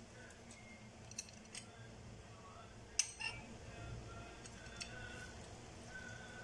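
Plastic hinged lemon squeezer being pressed over a bowl, faint, with a few light clicks and one sharper clack about three seconds in.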